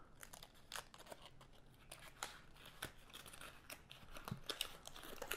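Faint crinkling and crackling of paper as the inner paper liner of a freshly opened pipe-tobacco tin is handled and peeled back. It comes as scattered small clicks that grow busier near the end.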